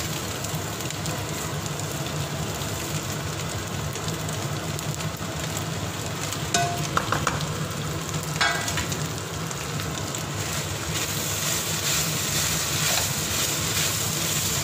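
Beef stir-frying and sizzling in a wok as sliced onions, dried red chillies and ginger are tipped in and stirred through. A few short knocks of utensil on pan come around the middle.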